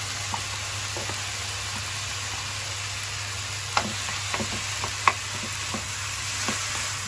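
Rice, egg and crumbled cup noodles sizzling in a nonstick frying pan with a steady hiss, while a wooden spatula stirs and turns them, tapping the pan now and then, with two sharper knocks about four and five seconds in.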